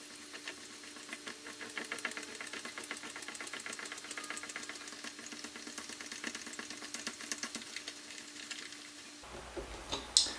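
White plastic stem adapter being hand-screwed onto the fine threads of a Moen Roman tub faucet's copper stem: a faint, rapid, steady run of small clicks as the plastic turns on the threads. A single sharper click near the end.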